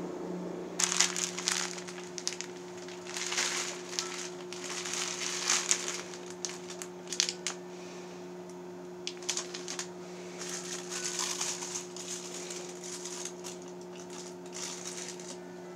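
Thin plastic wrappers crinkling in bursts as a wrapped toothbrush and a plastic-wrapped cup are handled, over a steady low hum.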